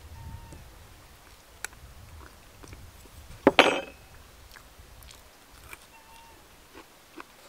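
Metal spoon clinking and scraping against a ribbed glass plate of stew, loudest in one sharp clink about halfway through, with a few lighter taps around it.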